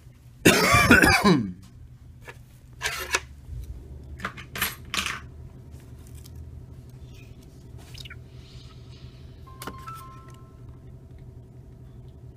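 Handling sounds as a smartphone is set down on a table: a loud clattering scrape about half a second in, then a few lighter knocks and rubs. A short faint tone sounds about ten seconds in.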